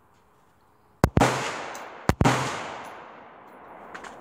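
Two rifle shots from a LaRue 16-inch AR-15-style rifle, about a second apart, each with a sharp doubled crack and a long echoing tail.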